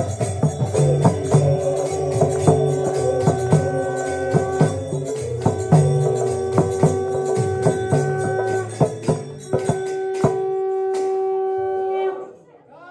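Devotional kirtan music: regular hand-drum beats and jingling cymbals under three long, steady held notes. The music stops abruptly near the end.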